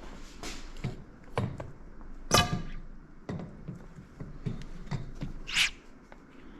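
Metal fork parts being handled: a string of taps and knocks, with a ringing metallic clink a little over two seconds in and another sharp clink near the end.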